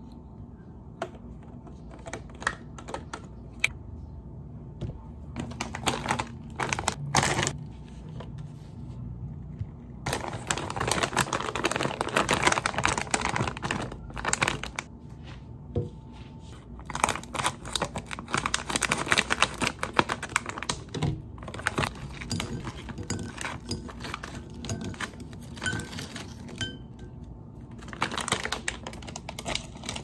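Plastic snack bag of pork rinds crinkling and rustling in repeated bursts as it is handled and the rinds are shaken out onto a ceramic plate, with light clicks and taps between the bursts.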